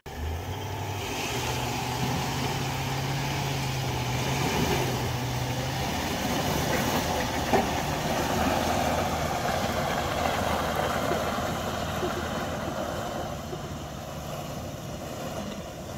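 Four-wheel drive's engine working under load as it tows a caravan through deep, sticky mud. The noise builds to a peak about halfway through, then fades as the rig pulls away. A single sharp click sounds about halfway in.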